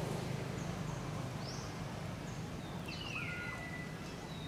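Outdoor natural ambience with a steady low background hum. About three seconds in comes a single high call that falls in pitch.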